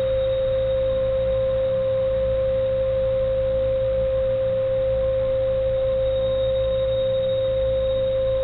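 A single steady pure tone in the middle register, held unbroken without wavering or fading, over a faint low hum.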